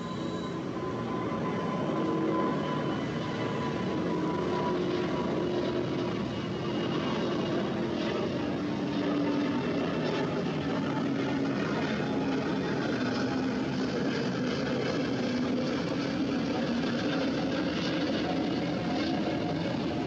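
Jet airliner's engines running at high power during takeoff: a loud, steady noise with faint tones that slowly fall in pitch.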